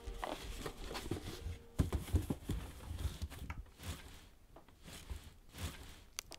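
Someone rummaging in a wardrobe: scattered knocks, clicks and rustling of clothes, hangers and things on a shelf being moved about, getting quieter about four seconds in.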